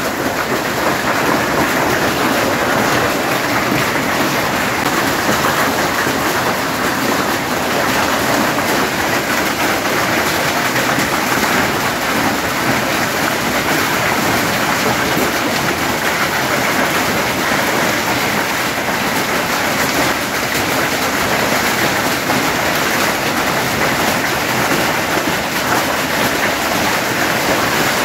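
Heavy rain and hail pelting down on the ground and corrugated tin sheeting, a loud steady downpour without a break.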